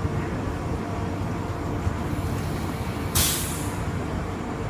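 Bombardier Innovia APM 100 people-mover car running along its guideway, heard from inside the car as a steady low rumble. About three seconds in there is a short, sharp hiss of air lasting about half a second.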